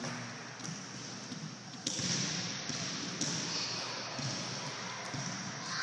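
Footsteps of an adult and small children running on a hardwood gym floor: an irregular patter of light footfalls in a large hall.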